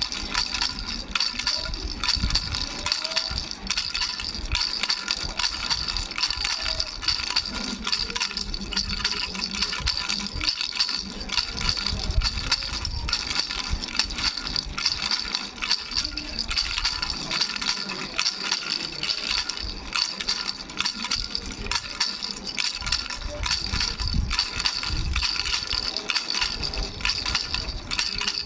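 Baby bell rattle shaken continuously, its small bells jingling with a steady high ringing under a dense rattle.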